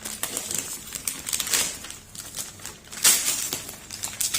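Gift wrapping crinkling and rustling in several bursts as a present is unwrapped by hand, loudest about three seconds in.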